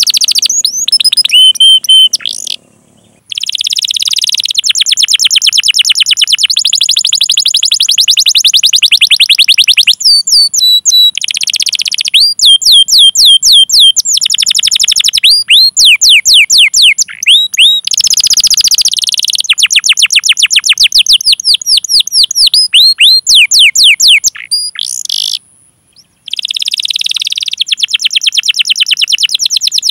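Domestic canary singing a long, loud, high-pitched song: fast rolling trills of rapidly repeated notes alternating with runs of sweeping 'cuit cuit' call notes, with two brief pauses, one about three seconds in and one near the end.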